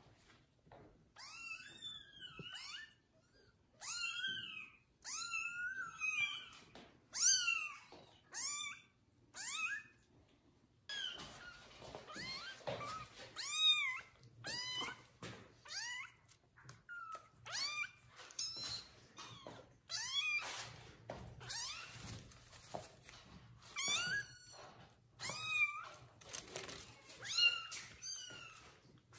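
Young kittens mewing over and over: short, high mews that rise and fall in pitch, coming one after another with brief gaps.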